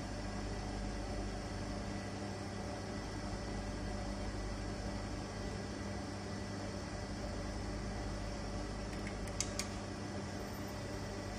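Vacuum pump running with a steady hum and low drone while it pumps down the gauge test manifold. A few light clicks come about nine and a half seconds in.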